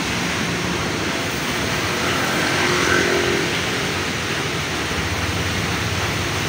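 Steady hiss of light rain and traffic on a wet street, with a motorcycle engine running close by.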